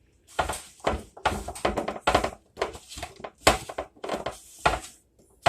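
Sliced raw potatoes being tossed and stirred with oil and spices: a run of irregular knocks and rattles as the pieces clatter against each other and their dish.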